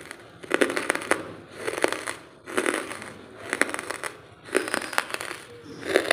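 Dry lump charcoal crunching and crumbling, in gritty bursts of fine cracks about once a second.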